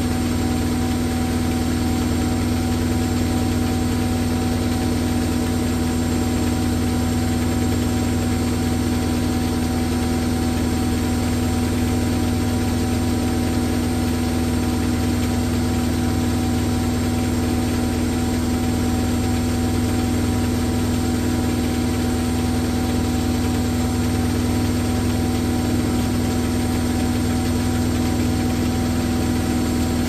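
Hoover Nextra top-loading washing machine in a high-speed spin: a steady motor whine over a low drum hum, its pitch holding constant throughout.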